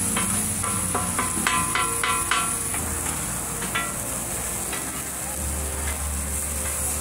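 Metal spatulas clanking and scraping on a flat-top griddle while food fries. The ringing strikes come in quick succession for the first few seconds, then thin out, over a steady sizzle.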